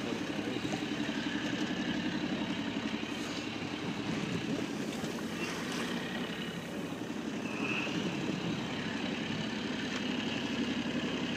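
Boat engine running steadily at constant revs.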